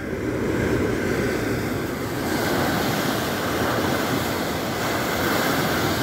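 Steady rush of a ship's bow wave breaking and spraying along the hull while the ship is under way, turning hissier about two seconds in.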